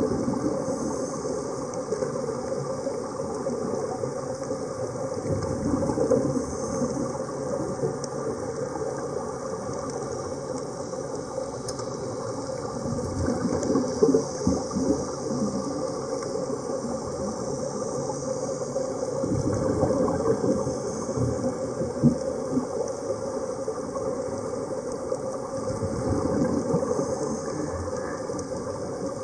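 Steady underwater noise from diving helmets: a continuous rush and crackle of air bubbling out of them and rising through the water.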